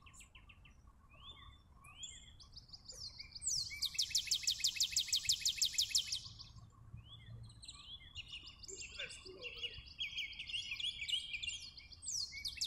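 Songbirds singing: one bird gives a fast, high trill about two and a half seconds long in the middle, with scattered short chirps and twittering from other birds around it.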